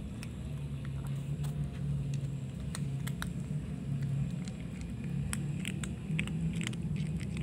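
A kitten crunching dry kibble: small sharp irregular clicks, over a steady low hum.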